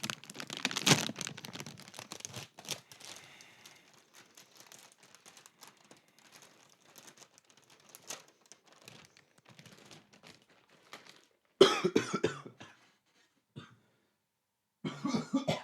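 Plastic cereal bag liner crinkling as it is pulled open, the rustling thinning out over several seconds. Near the end a person coughs in two short bouts, set off by the strong stale smell of the cereal.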